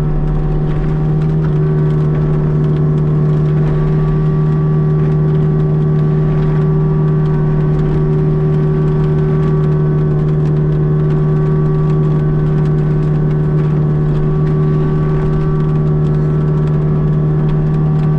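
Tracked forestry mulcher's diesel engine running steadily at constant high revs, a continuous even hum.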